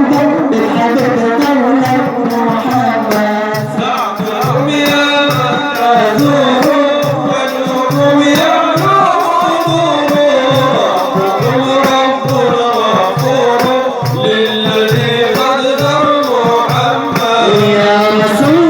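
Sufi religious song (inshad): a male munshid singing over melodic accompaniment, with a steady low beat about twice a second.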